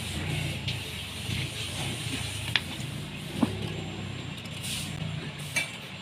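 A steady low motor drone, with a couple of faint metallic clicks from engine parts being handled, a little after two and three seconds in.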